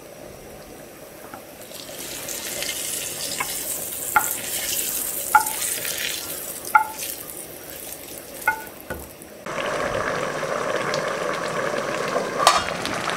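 Hot mustard oil sizzling as fried onions are scraped out of a frying pan onto a plate, with a metal spoon knocking on the pan five times. About nine and a half seconds in, the sound switches to a louder steady bubbling from the pot of rice and stock, which is boiling down before dum, and there is one metal clink near the end.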